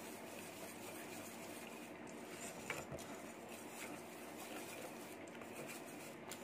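Wire whisk stirring a thick soap paste in a stainless steel bowl: faint, steady stirring and scraping, with a light click about two and a half seconds in.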